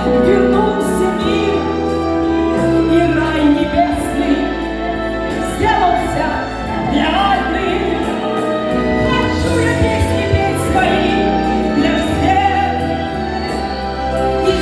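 A Russian pop song: a woman's voice singing over backing music.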